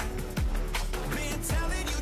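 Background pop music with a steady beat and deep bass drum hits that drop in pitch.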